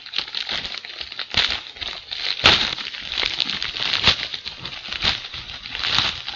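A shipping package of books being opened by hand: irregular crinkling and rustling of the packaging, with a sharp click about two and a half seconds in.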